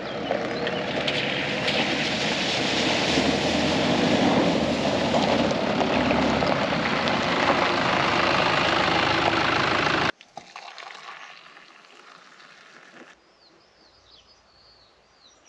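Nissan Terrano II off-roader driving through a shallow river ford and up onto gravel, engine running and tyres churning through water and stones. About ten seconds in it cuts off suddenly to quiet countryside with faint birdsong.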